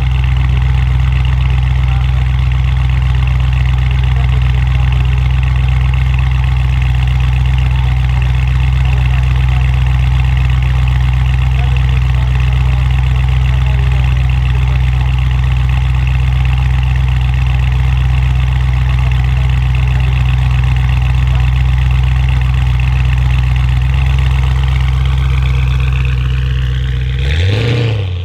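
Audi RS6 C8's twin-turbo V8 idling steadily through a straight-pipe Capristo exhaust with the particulate filter deleted. Near the end the pitch rises briefly in a short blip, then the sound drops away.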